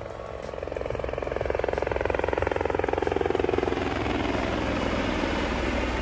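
Helicopter flying past, its rotor chop growing louder over the first two seconds, then dropping in pitch as it passes.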